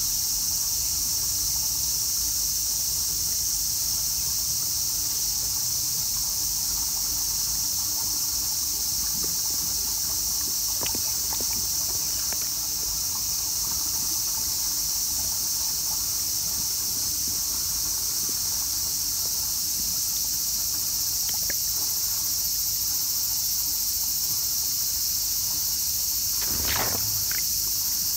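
A steady, high-pitched summer chorus of cicadas with no let-up. A few faint clicks and a short louder sound near the end come through beneath it.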